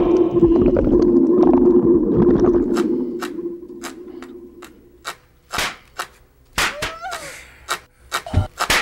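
A rushing ambience with a steady low hum fades out over the first few seconds. It is followed by a series of sharp, irregular clicks and knocks, two of them with short squeaky glides.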